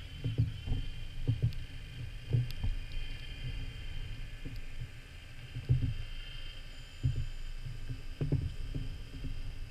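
Muffled underwater noise: irregular low thumps and rumbling of moving water, with a faint steady high whine through the middle.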